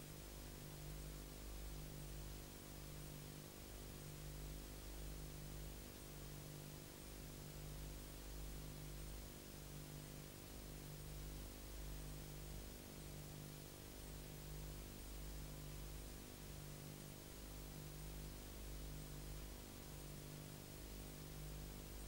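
Faint, steady electrical hum under hiss, the low part pulsing about once a second. It is the empty soundtrack's noise floor with no sound effects or music.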